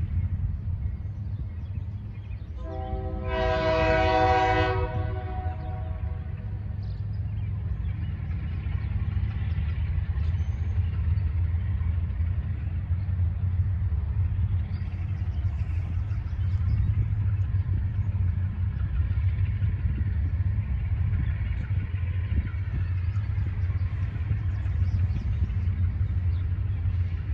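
Air horn of a Finger Lakes Railway GE B23-7 diesel locomotive sounding one blast of about two seconds, a few seconds in, over a steady low rumble.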